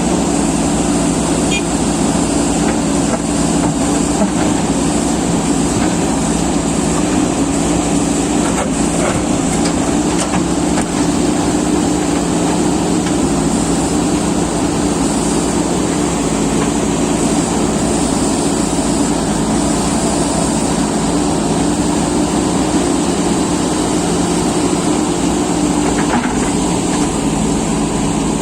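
JCB excavator's diesel engine running steadily under hydraulic work, a continuous drone with a steady pitch.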